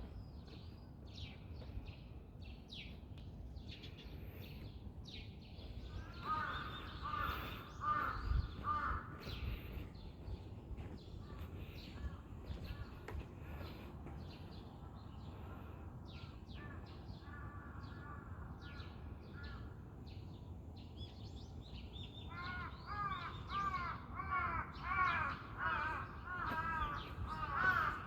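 Crows cawing in repeated series, one spell about six seconds in and another from about 22 seconds on that grows louder toward the end, over a faint steady low background hum and scattered short high chirps.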